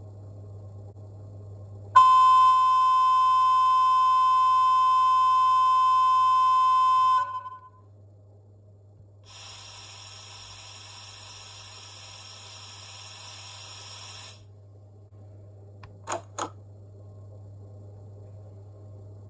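DCC sound decoder of an N-scale HXD3C electric locomotive model playing a long horn blast: a loud, steady high tone held about five seconds. After a pause comes a harsher, buzzier sound of about five seconds, then two short clicks, all over a steady low hum.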